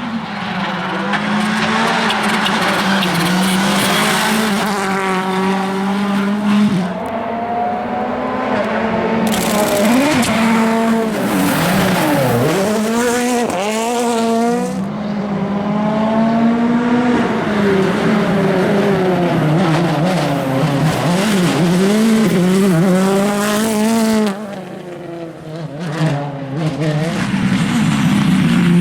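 Rally car engines at full stage pace, revving hard up and then dropping again and again through quick gear changes. About midway one car sweeps past, with its pitch swinging sharply down and up.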